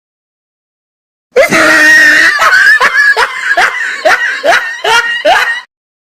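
A person's shrill scream, then a rapid run of about eight short rising laughing cries, a little over two a second, stopping abruptly.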